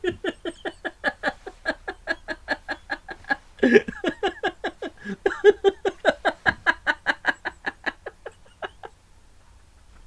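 A person laughing in a long run of quick, even 'ha-ha' pulses, about five a second, with a short break near four seconds. The laughter dies away about nine seconds in.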